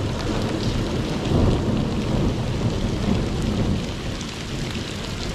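Heavy rain pouring down in a thunderstorm, with a deep rumble of thunder that swells about a second and a half in.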